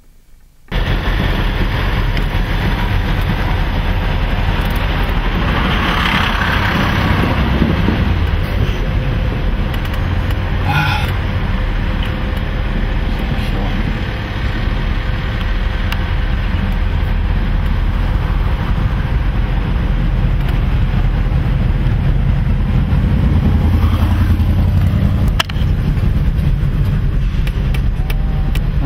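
A car driving along a road: a steady rumble of engine and tyres that starts abruptly under a second in.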